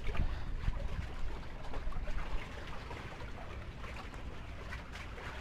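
Water lapping and sloshing against the bamboo poles of a floating fishing platform, a steady wash with a low rumble under it and a few faint knocks in the first couple of seconds.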